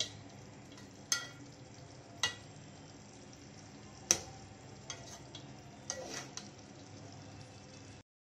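A metal slotted spoon stirring cauliflower and potato curry in a pot, knocking sharply against the pot about eight times, the loudest about four seconds in. A low steady sizzle of the curry cooking runs underneath.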